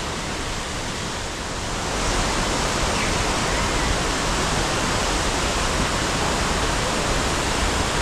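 Upper Düden Waterfall and the white water below it: a steady rush of falling and churning water, which gets louder about two seconds in.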